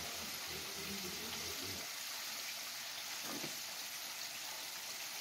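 Hot oil sizzling steadily in a skillet as French fries deep-fry, an even hiss.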